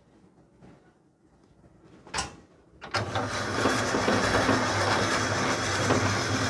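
A single sharp knock about two seconds in, then an ice-shaving machine starts about three seconds in and runs steadily, its motor humming under the rasp of the blade shaving a block of ice into a bowl.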